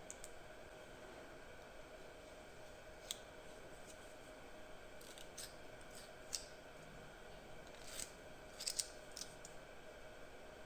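Scattered short, sharp snips and clicks, the loudest pair about nine seconds in, over a faint steady hum.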